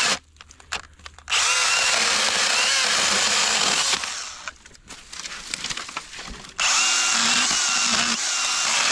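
Makita MUC101D 18V cordless handy chainsaw cutting branches, its motor and chain running with a high whine. It stops for about a second just after the start and runs again. In the middle it drops away and stutters for a couple of seconds as the chain stops in a thick branch, then runs at full speed again.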